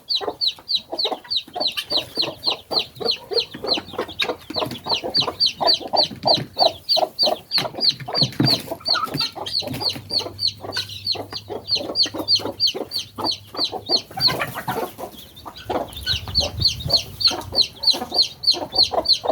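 Helmeted guineafowl calling in a rapid, even string of sharp cries, about four a second, with lower chattering calls beneath. The high cries break off for a couple of seconds about fourteen seconds in, then start again.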